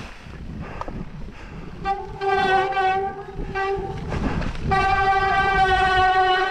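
Mountain bike disc brakes honking under braking, wet from heavy rain: two long, steady horn-like tones, the first about two seconds in and the second starting about a second later.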